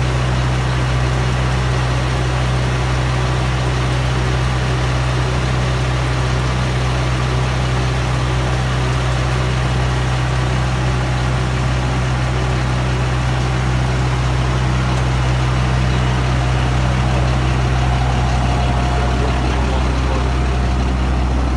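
Sewer-cleaning truck's engine running steadily, powering the high-pressure water jetting pump that flushes the sewer line as the hose is drawn back out. A loud, even drone.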